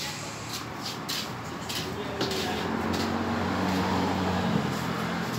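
Steady background noise with a few light clicks in the first half, and a low engine-like hum that swells from about two seconds in.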